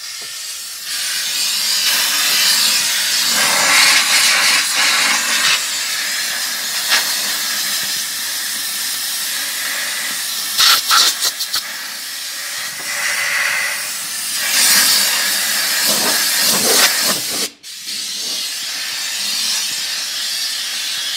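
Compressed air hissing from a handheld blow gun blasted over a tractor's engine air filter to blow the dust out. The hiss swells and dips as the nozzle moves, with a few short clicks partway through and a brief break late on.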